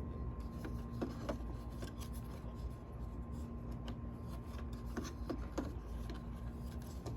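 Faint scraping and scattered light clicks as the door handle's threaded lock rod is turned and worked back onto its threads inside the door, over a steady hum.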